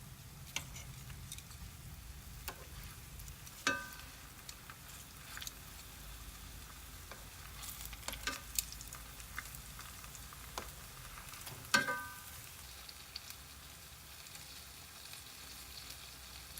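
Banana turon (spring-roll-wrapped bananas) frying in hot oil, a steady low sizzle. A metal utensil clinks sharply against the pan twice, about four and twelve seconds in, with lighter taps in between as the rolls are turned.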